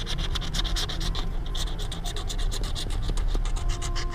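Scratch-off lottery ticket being scratched, a fast run of short scraping strokes, about ten a second.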